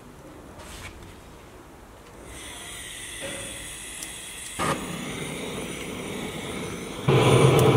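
Small handheld electric blower blowing air into a tandoor's wood firebox to get the fire going: a steady motor whine with rushing air that starts about two seconds in and becomes much louder near the end.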